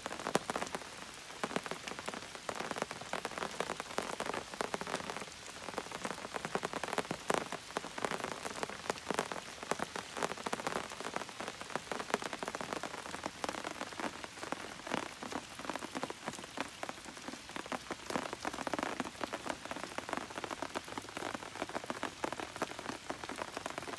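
Steady rain falling, with many separate drops tapping irregularly on a surface.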